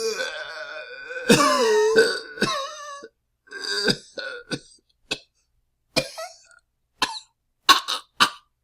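A person coughing from the chest: a long, drawn-out coughing fit with a pitched, wavering voice sound and two loud hacks during the first three seconds, then a string of short, separate coughs.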